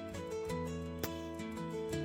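Background music: a light plucked-guitar tune.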